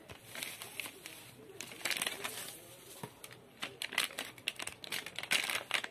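Plastic packaging crinkling as it is handled: bubble wrap being pulled aside and a hard disk's foil anti-static bag. It comes as irregular clusters of sharp crackles with short pauses between them.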